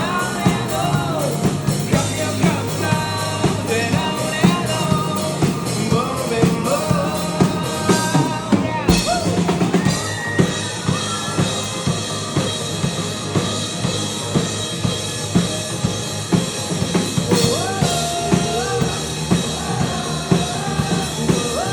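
Rock band playing live: a drum kit keeping a steady beat on bass drum and snare under a melodic line with bending pitches, in a passage without singing.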